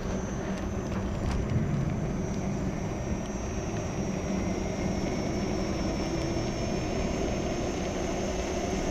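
Steady rumble of wind buffeting the microphone and tyre noise from an electric unicycle being ridden, with a faint, steady, high-pitched whine over it.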